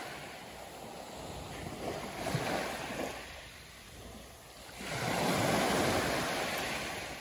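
Small waves washing in at the water's edge of a calm beach. The wash swells twice, the louder one about five seconds in.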